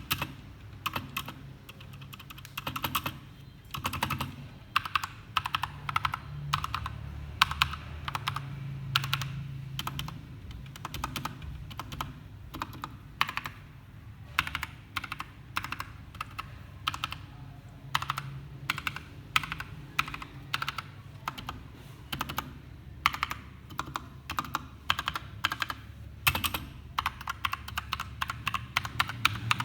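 Akko 3068 Silent Bluetooth mechanical keyboard being typed on: a fast, uneven run of key clicks with brief pauses between bursts of keystrokes.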